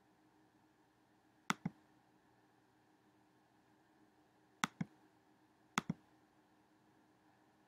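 Computer mouse button clicked three times, each time a quick pair of clicks, over a faint steady background hum.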